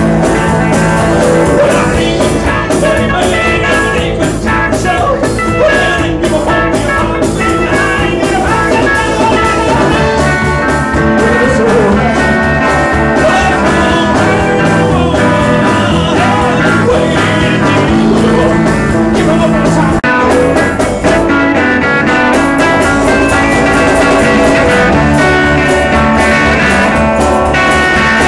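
Live rock band playing loud through amplifiers: guitars, electric bass guitar and drum kit.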